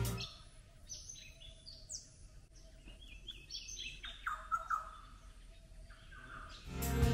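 Wild birds calling: a string of short, high chirps that drop in pitch, loudest about four to five seconds in, over a faint steady drone. Background music stops just after the start and comes back near the end.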